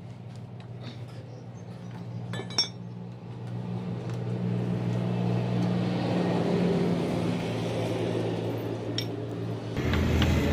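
Screwdriver and metal screws clinking as the motorcycle's plastic belly pan is unscrewed, with one sharp metallic clink about two and a half seconds in. Under it runs a steady low engine hum that grows louder after a few seconds.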